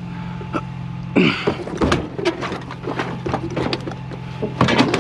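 Scrap metal being handled and stacked: a string of sharp clanks and knocks starting about a second in, over a steady low engine hum.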